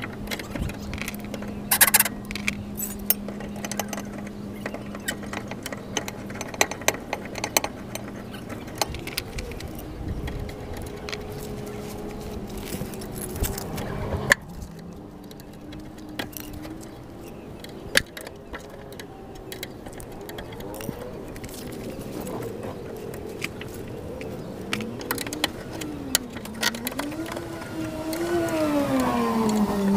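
Hand tools clicking and clinking against the fuel hoses and clamps under a car, in scattered taps and knocks. A steady hum fills the first part, and in the last several seconds a wavering tone rises and falls repeatedly, growing louder.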